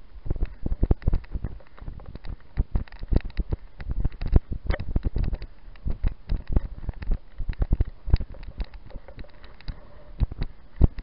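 Mountain bike rolling along a tarmac road, heard through a handlebar-mounted camera: low wind buffeting with many irregular knocks and rattles as the bike and mount jolt over the surface.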